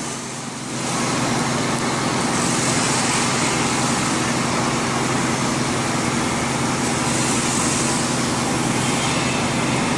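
Hydraulic pump unit of a 100-ton electro-hydraulic servo CNC press brake running with a steady hum and hiss while a sheet is bent. The sound drops briefly in the first second, then holds steady.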